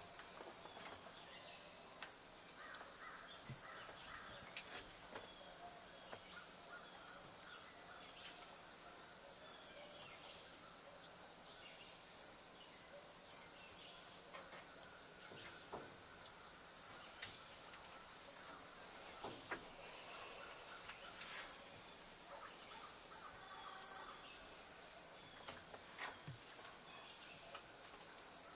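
Steady, high-pitched insect chorus droning without a break, with a few faint scattered clicks.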